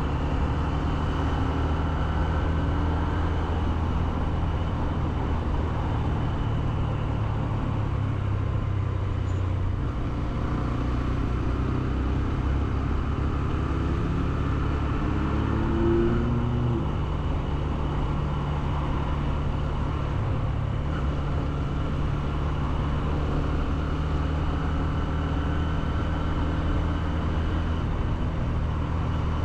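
Honda CB125F's 125cc single-cylinder engine running steadily while being ridden, with its note shifting a couple of times around the middle.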